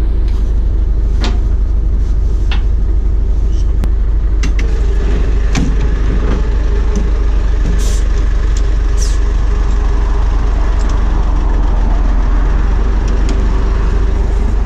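A steady heavy engine drone runs throughout, with scattered metallic clanks and two short hisses of air as the coiled air line and couplings are connected between the units.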